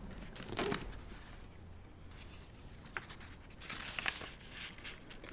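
Pages of a book being handled and turned close to a microphone: soft paper rustles about half a second in and again around four seconds, with a sharp tick near three seconds.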